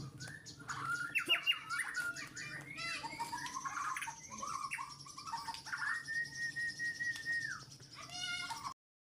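Songbirds singing against each other: a young bird countering an adult's song with a run of varied chirps, quick trills and whistles, including one long held whistle partway through. The sound cuts out briefly near the end.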